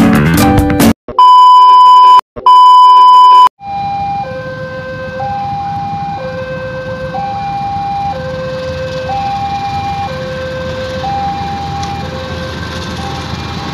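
Railway level-crossing alarm sounding two alternating tones, high then low, each held about a second, over the low rumble of an approaching GE CC206 diesel-electric locomotive hauling tank wagons. Before it, a snatch of music cuts off and two long, loud beeps sound.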